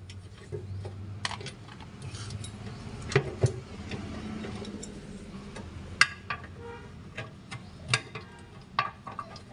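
Metal hand tools and engine parts clinking and knocking as they are handled, with a handful of sharp, irregularly spaced strikes over a low steady hum.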